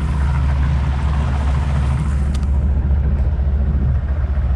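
A small fishing boat's engine running steadily at a low, even drone. There is one light click about two seconds in.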